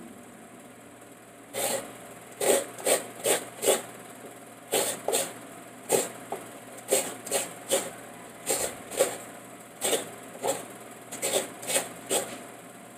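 Coconut being grated on a stool-mounted coconut grater: a run of short rasping scrapes, two or three a second in uneven groups with brief pauses, starting about a second and a half in.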